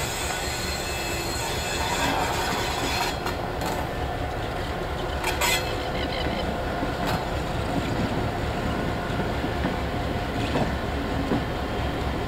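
NSW 49 class diesel-electric locomotive 4903 moving along the yard tracks, its diesel engine running with a steady low throb, with a few sharp clanks from the wheels over the rail joints.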